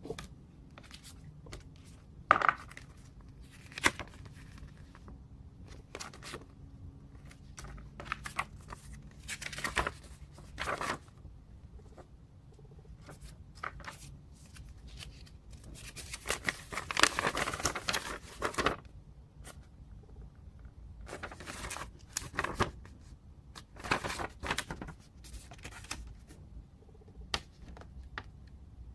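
Packaging being handled while unboxing a keyboard: scattered clicks and knocks mixed with short bursts of rustling and tearing. A longer stretch of rustling comes about two-thirds of the way through.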